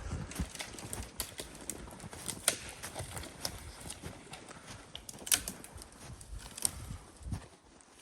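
Footsteps crunching through deep snow at an irregular pace, with a few sharper cracks standing out.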